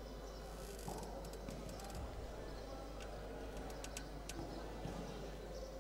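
Sports-hall ambience: faint, indistinct voices of players and onlookers over the hall's background noise. A scattering of short, sharp clicks or taps falls in the first two-thirds.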